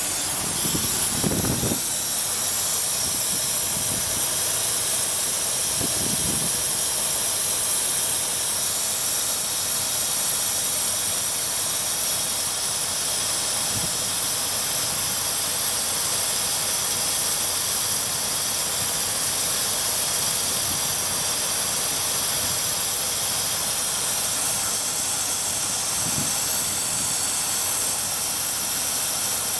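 Engine fitted with a GEET fuel processor idling steadily, heard close up under the hood as an even, strong hiss, with a few faint bumps.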